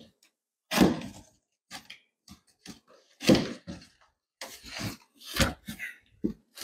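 Cardboard box being opened by hand, with the tape pulled loose and the flaps scraping and rustling open in several irregular bursts.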